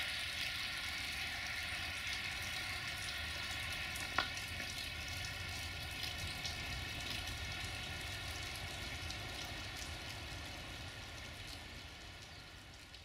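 Freight train of hopper wagons rolling away on the rails: a steady hissing rolling noise with a low rumble underneath, fading out near the end. One sharp click about four seconds in.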